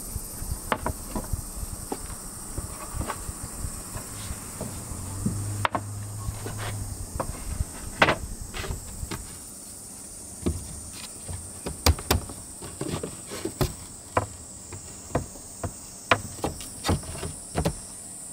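Wooden boards being set down and shifted into place on a car's sleeping platform: a string of irregular knocks and taps, a few of them loud, over a steady high-pitched chirring of insects.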